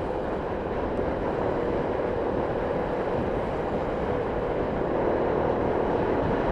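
Motorcycle riding at steady road speed: a steady engine hum under wind and road noise, getting slightly louder about five seconds in.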